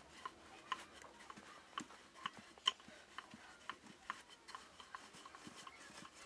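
Light, irregular clicks and taps, one or two a second, as flatbread dough is worked by hand and rolled out with a wooden rolling pin.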